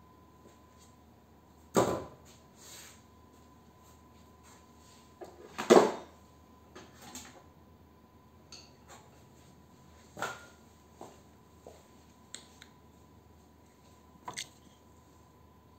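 Metallic clanks and knocks of electric motor parts being handled: two loud impacts about 2 and 6 seconds in, then lighter knocks and clicks spread through the rest.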